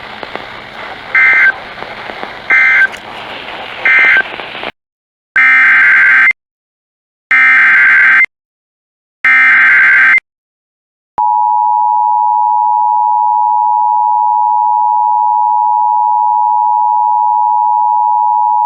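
Emergency Alert System tones. First, three short SAME data bursts, the end-of-message code, sound over radio static. Then three one-second SAME header bursts, and about eleven seconds in the two-tone EAS attention signal (853 and 960 Hz together) starts and holds steady.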